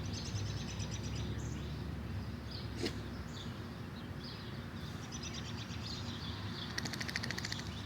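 Wild birds chirping over a steady low outdoor background noise, with a fast trill near the end and a single click about three seconds in.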